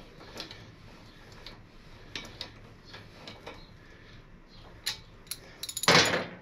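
Ratchet clicking in short spells while it runs a 3/4-inch Allen socket and the front axle in until snug. Near the end there is a loud metal clatter as the tool is set down on the lift's metal deck.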